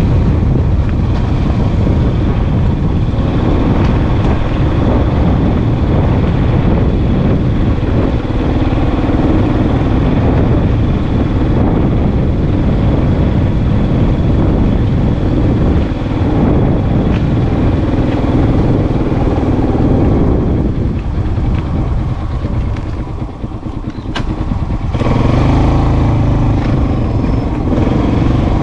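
Motorbike engine running steadily while riding along. It eases off and goes quieter for a few seconds about three-quarters of the way through, then picks up again.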